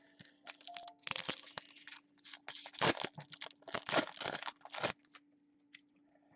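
Crinkling and tearing of a trading-card pack wrapper, handled in a string of short irregular rustles that are loudest about three and four seconds in, over a faint steady hum.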